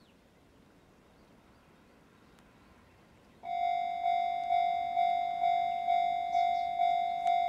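A Japanese railway level crossing's warning bell starts suddenly about three and a half seconds in and rings steadily about twice a second, the alarm that a train is approaching the crossing. Before it there is only faint background.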